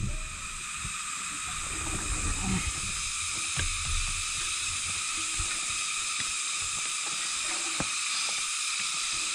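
Steady high-pitched hiss, with low rumbling that is stronger in the first few seconds and a few faint knocks scattered through.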